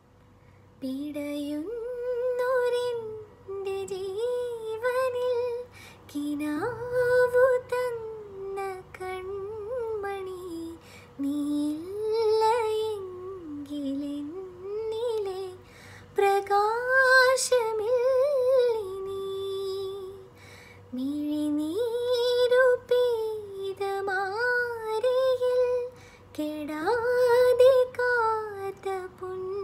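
A woman singing solo: a slow, smooth melody sung in phrases a few seconds long, with short pauses for breath between them.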